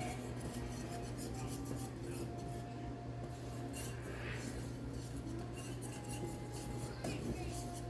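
Wire whisk beating batter in a ceramic Dutch oven: quick, repeated scraping and clicking of the whisk against the pot.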